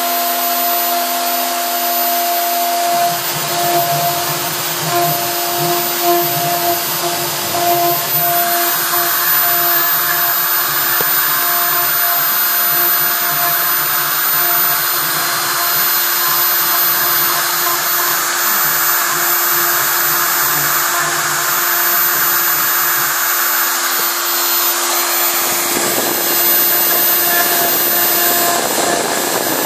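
Small CNC router at work: the spindle motor runs with a steady whine while a V-bit carves lettering into a wooden board, and the stepper-driven axes move the gantry. The cutting hiss grows louder about a third of the way in, and a lower hum drops out for a couple of seconds near the end.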